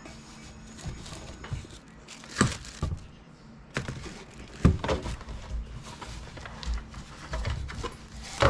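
Irregular clicks, knocks and rustling from hands and tools working on a resin 3D printer, taking out screws and pulling its bottom panel off, with a few sharper knocks.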